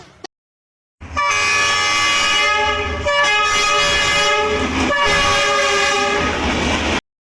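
Train horn sounding a chord of several steady tones, starting about a second in and held for about six seconds, with two brief breaks, over the noise of the moving train.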